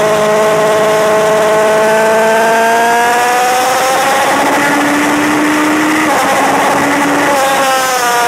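Onboard sound of a Honda CB900F racer's air-cooled inline-four engine under hard acceleration, its pitch climbing steadily for about four seconds and then holding at high revs. There is a brief break about six seconds in, and the pitch falls near the end as the bike slows.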